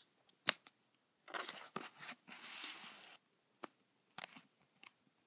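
Pokémon trading cards being handled in the fingers: a few short stretches of rustling and scraping, with several sharp light clicks.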